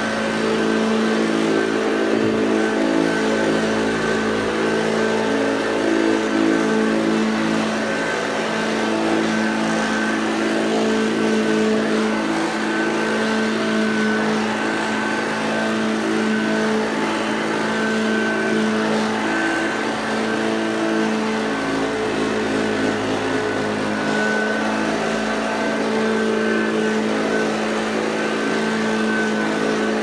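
Hoover Junior U1104 upright vacuum cleaner running steadily with an even motor hum as it is pushed over carpet.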